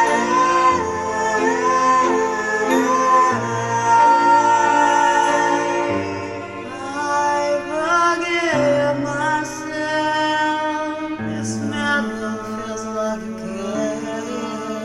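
A song: a sung melody over instrumental backing with held bass notes.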